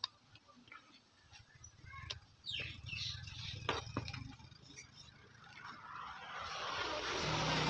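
Light clicks and scrapes from a metal amplifier front panel being handled and its knobs touched, with a rushing noise that swells up near the end and carries a low hum.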